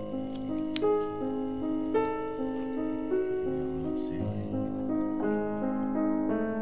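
Background piano music: a slow run of held notes.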